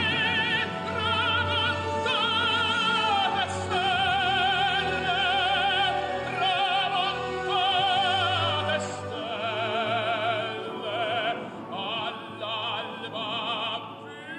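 Operatic solo singing with strong vibrato over an orchestral accompaniment.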